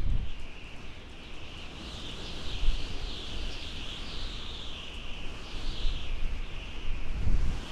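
Outdoor nature ambience: a steady high-pitched animal chorus that swells and fades in waves, over a low rumble.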